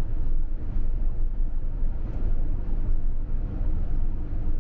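Moving campervan's engine and road noise: a steady low rumble.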